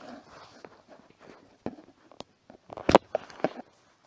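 Scattered clicks and light knocks of tools and parts being handled while a microwave is taken apart, with one sharp knock about three seconds in.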